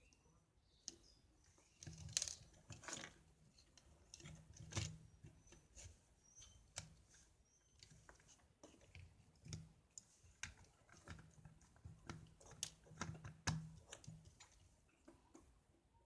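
Faint, irregular clicks and taps of small plastic parts being handled, a few of them sharper knocks, as a rechargeable torch is worked on by hand.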